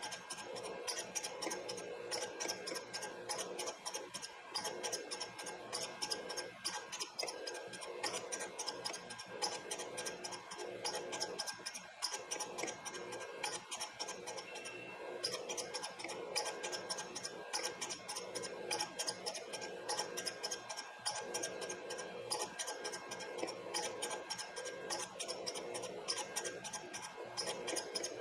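Valve refacing machine running, its grinding stone grinding the end of a Model T valve stem to length dry, with a fast fine ticking over a steady hum.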